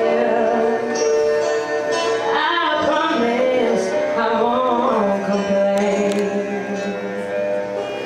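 A woman singing live into a handheld microphone with music, holding long notes and bending through wavering melismatic runs from about two to five seconds in.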